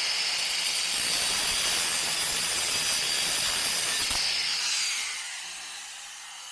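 A handheld rotary power tool runs steadily with a high whine and hiss on sheet-metal bodywork, then winds down about five seconds in.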